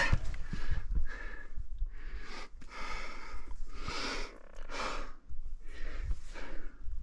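A hiker breathing hard during a steep mountain scramble, with quick, repeated breaths in and out.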